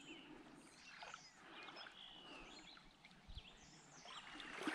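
Faint outdoor ambience with many short, scattered bird chirps. A footstep-like scuff comes in near the end.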